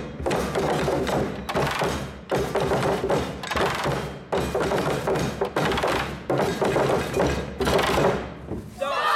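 A group drumming with sticks on plastic barrel drums: many fast strikes together in a steady rhythm with a few brief breaks, stopping near the end.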